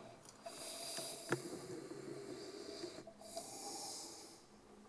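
A man's loud breathing through the nose as he sips red wine from a glass: two long, hissing breaths, with a single sharp click about a second in.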